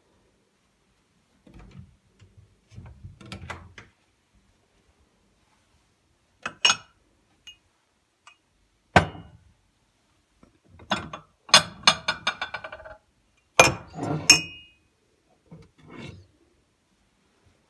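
Household objects being handled, clinking and knocking on one another and on hard surfaces. There is a quick rattling run of clicks about twelve seconds in, and a short ringing clink near fourteen seconds.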